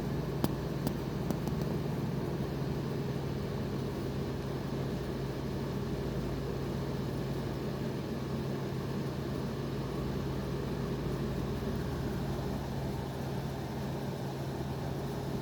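A steady low mechanical hum over a constant background hiss, with a few small clicks in the first second and a half.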